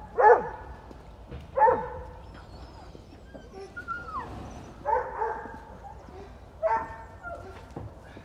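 Airedale terrier barking: four separate barks, the first two sharp and loud, the last two longer and quieter.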